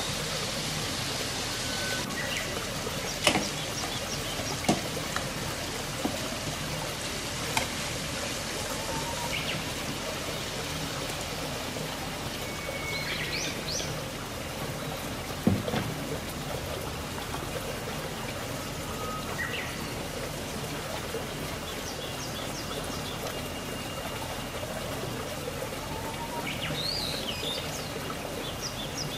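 Chicken adobo sizzling and simmering steadily in a nonstick frying pan while liquid seasonings are poured in, with four sharp knocks against the pan and a few short high chirps.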